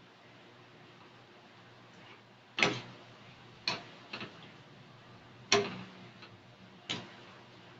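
A cooking utensil knocking against a pot while soup is being stirred: five sharp, irregular clinks, a couple of them ringing briefly.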